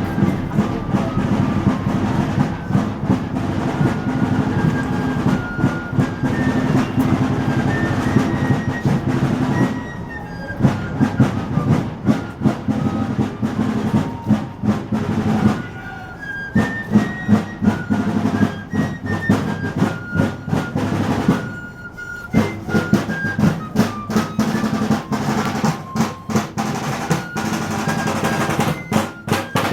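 Marching music: snare drums beating and rolling under a high, stepping melody, with brief breaks between phrases.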